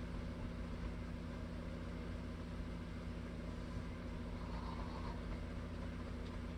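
Steady low machine hum made of a few even tones.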